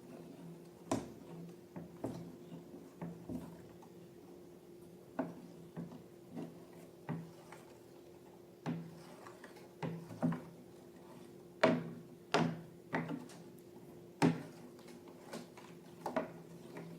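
Irregular sharp clicks, taps and small knocks, about fifteen of them spaced unevenly, with the loudest a little past the middle. A steady low hum runs underneath.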